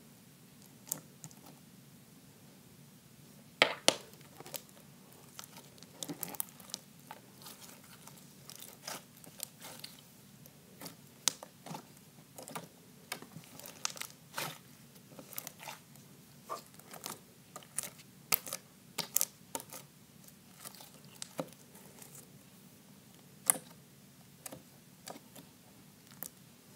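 White slime being squished, folded and poked by hand, giving irregular sharp pops and crackles, with the loudest snaps about four seconds in and again near the end.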